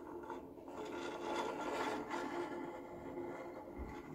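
Rubbing and scraping of a plastic model's parts against each other and the tabletop as a hand lifts and turns it, starting with a sharp knock.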